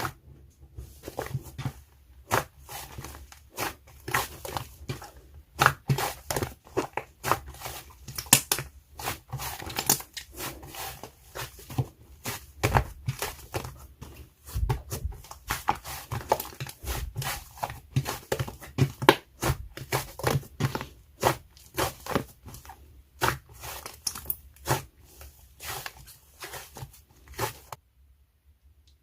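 Hands squishing and poking slime, a dense, irregular run of sticky clicks and pops that stops abruptly shortly before the end.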